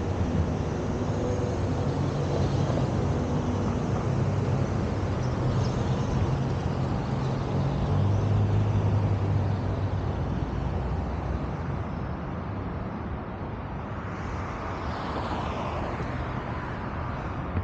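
City street traffic: a steady low engine hum with cars moving through the intersection, and one vehicle going by with a falling whine near the end.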